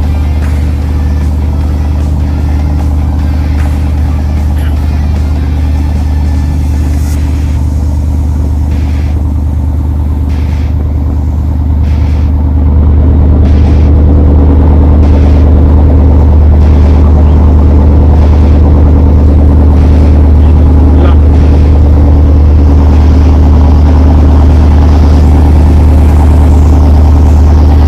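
A boat's engine running steadily under way, a loud low drone that rises in level about twelve seconds in as the throttle is opened.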